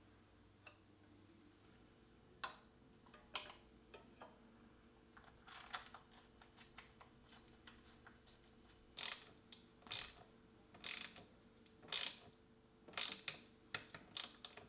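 Small ratchet hex driver tightening the clamp bolt of a bicycle front derailleur on a carbon seat tube, with light metal clicks of the clamp being fitted first. From about nine seconds in come sharper ratcheting clicks and short rasping strokes, roughly one a second, with several close together near the end.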